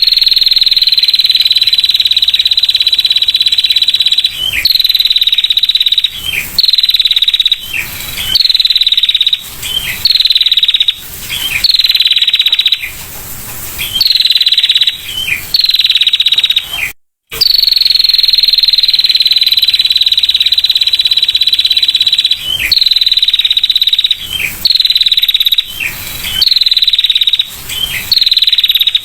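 Female prinia giving its rapid, buzzy trill call, high and clear. One long trill of about four seconds is followed by a string of shorter trills a second or so apart, each ending with a quick dip in pitch. After a brief break about halfway through, the pattern starts over with another long trill.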